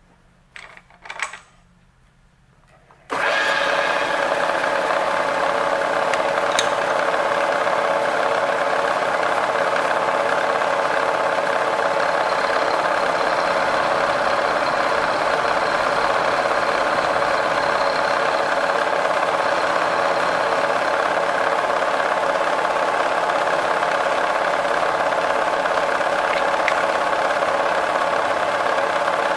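Vertical milling machine running with an end mill cutting into the top of a metal block, hand-fed in a climb cut: a steady, dense mix of motor whine and cutting noise. It comes on abruptly about three seconds in, after a near-quiet start with a couple of faint clicks.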